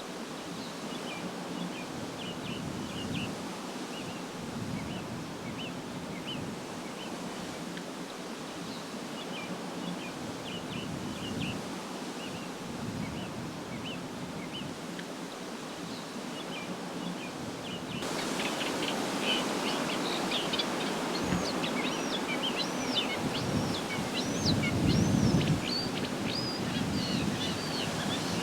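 Reed warblers singing: a long chattering run of short, quick notes over a steady noisy background. About two-thirds of the way through the sound changes abruptly and the song becomes louder and busier, with looping rising-and-falling notes.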